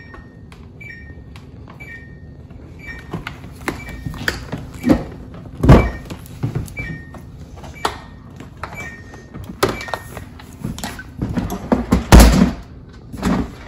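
Knocks and plastic clunks from a Samsung French-door refrigerator's door flipper being worked loose by hand, with two heavy thumps, one about six seconds in and one near the end. Short two-note electronic beeps repeat steadily throughout.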